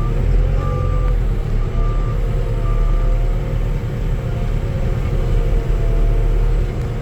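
Skid steer engine running under load, heard from inside the cab, with a slowly shifting hum over a steady low rumble. The back-up alarm beeps about once a second for the first three seconds, then stops as the machine quits reversing.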